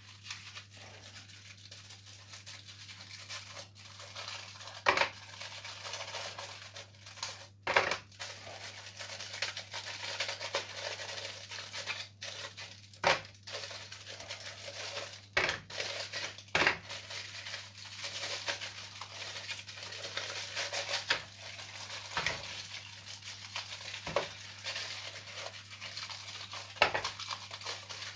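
Foil wrapper crinkling and rustling as a bar of chocolate is unwrapped and broken up by hand, with a handful of sharp snaps scattered through, over a steady low hum.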